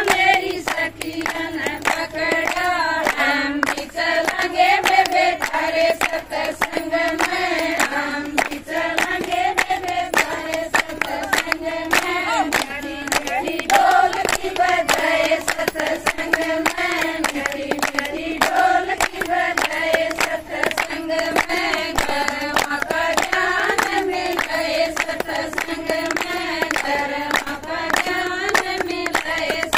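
A group of women singing a Haryanvi folk song together, with steady rhythmic hand-clapping keeping time.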